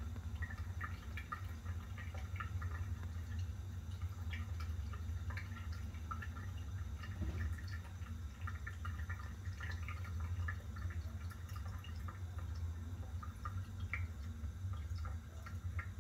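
Thin stream of tap water running from a kitchen faucet onto a stainless steel sink, with irregular dripping, splashing ticks over a steady low hum.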